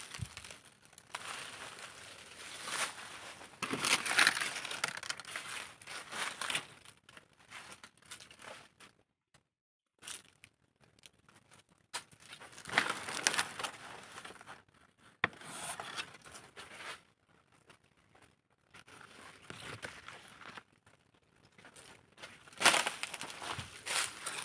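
Dry banana leaves crackling and crumpling as they brush against the phone, in irregular bursts with a brief near-silent gap about nine seconds in.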